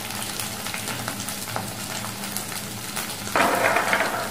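Onion and cashew paste sizzling as it fries in a nonstick pan, with fine crackles and a low steady hum underneath. About three seconds in there is a louder rasping burst lasting under a second.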